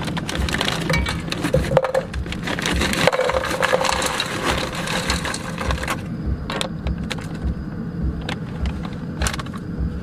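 Frozen meal pieces poured from a plastic bag into a metal pot, a dense rattling and crinkling for about six seconds. Then it is quieter, with a few clicks and bag rustles.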